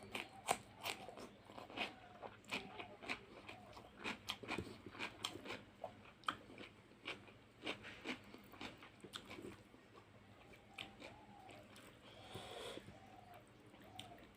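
Close-up eating sounds: a person chewing with crisp crunches and wet mouth clicks, coming two or three a second for the first ten seconds and then thinning out.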